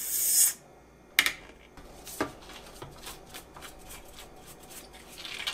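A short hiss of air rushing into the vacuum-sealed Ninja FreshVac single-serve cup as the lid's tab is pulled up, releasing the vacuum. This is followed by two sharp plastic clicks and a run of light clicks and ticks as the cup and lid are handled.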